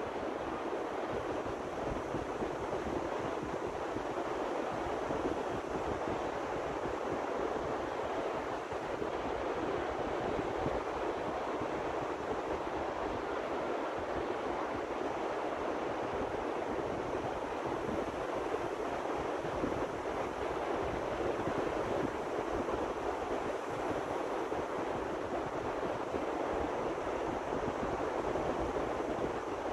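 Steady wind blowing across the microphone: a constant rushing with an uneven low rumble of buffeting.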